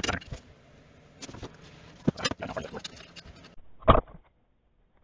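Light metallic clicks and clatter of metal motor-mount parts being handled. About four seconds in comes a single louder knock.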